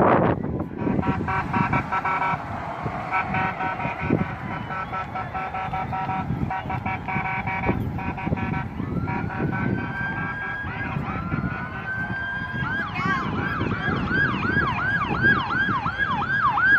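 Emergency vehicle siren: a rising wail about halfway through that switches to a fast yelp, about two cycles a second, near the end. Before it, steady horn blasts sound over the hubbub of a crowd.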